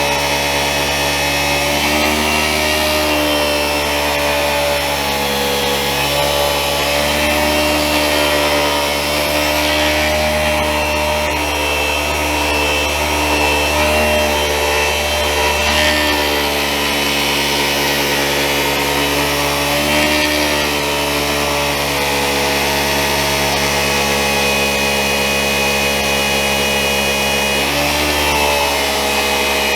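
Handheld electric massager running steadily, a loud motor hum whose pitch wavers slightly as it is worked over the back.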